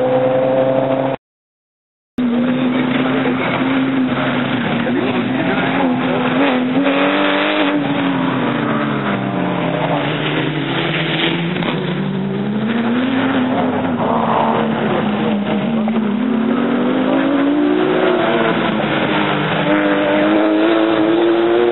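Rally car engine running hard. The audio drops out completely for about a second near the start. Later the engine note sinks away, then climbs steadily again and stays high near the end.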